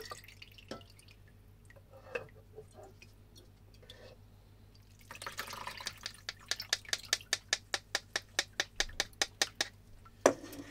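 Water kefir dripping back into its jar as the soaked fruit is fished out: scattered drips at first, then a quick steady run of drops, about five a second, in the second half, with one sharper knock near the end.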